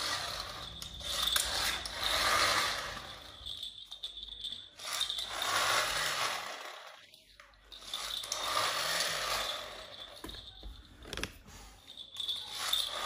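Plastic toy's gear mechanism whirring and rattling in spells of two to three seconds, four times, with short pauses between.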